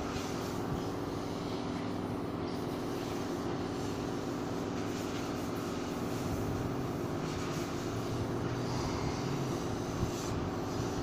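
Steady mechanical drone of background machinery, a constant low hum, with a light knock near the end.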